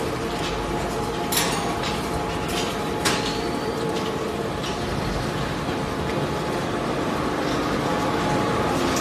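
Industrial waste shredding line running: a steady, dense mechanical din with a constant hum. Two sharp knocks stand out, about a second and a half in and again about three seconds in.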